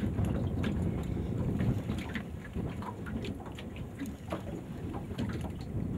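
Wind buffeting the microphone in a gusty rumble, over water slapping against the hull of a small fishing boat on open river water.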